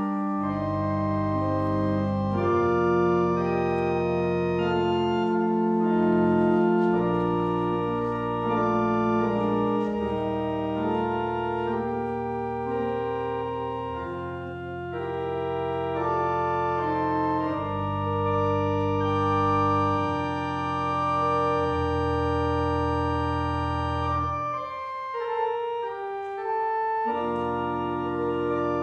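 Church organ playing held chords over deep bass notes that change every second or two; the bass drops out briefly near the end.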